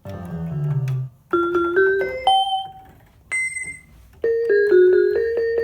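Rock Jam RJ-661 electronic keyboard played on its vibraphone voice with vibrato switched on: a cluster of notes at the start, then single notes struck one after another, each fading away.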